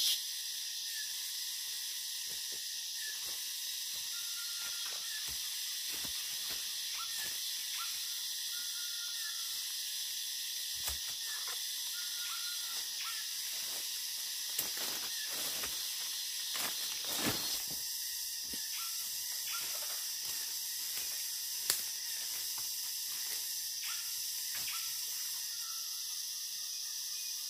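Steady high drone of rainforest insects, with short faint chirps now and then. A few sharp clicks and snaps break through, the loudest a little after the 20-second mark.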